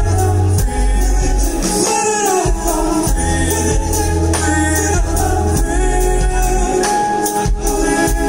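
Live band playing: a male voice sings a gliding melody over keyboards, guitar, drums and deep held bass notes. The bass drops out twice, about two seconds in and again near the end.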